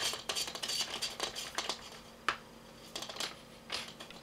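Airsoft tracer unit being screwed onto the reverse-threaded outer barrel by hand: a run of small irregular metallic clicks and rattles, busier at first, with one sharper click a little past halfway.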